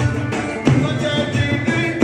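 Folk dance music: a held, high melody line over drum strikes.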